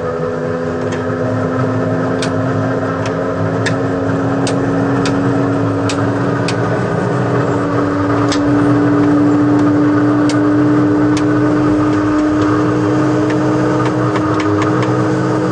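Antonov An-2's inertia starter being energised for the radial engine start: a steady whine from the flywheel winding up, its pitch climbing slowly and evenly, with scattered sharp clicks.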